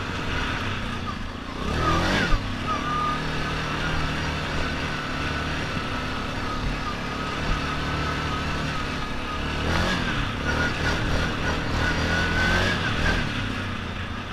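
Yamaha Grizzly 700 ATV's single-cylinder engine running continuously, its pitch swinging up and down about two seconds in and again around ten seconds.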